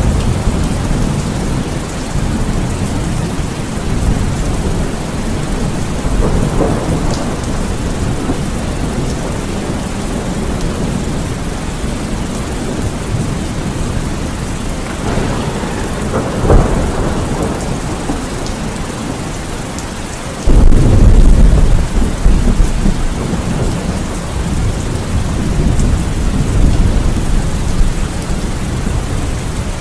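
Steady heavy rain with rumbles of thunder. A sharp crack comes a bit past halfway, and a few seconds later a loud thunderclap booms in suddenly and rolls on.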